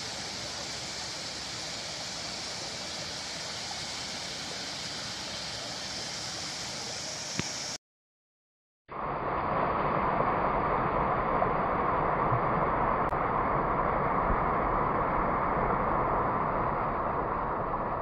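Water pouring over a low stone ledge into a creek, a steady rush. It cuts out for about a second near the middle, then comes back louder and more muffled.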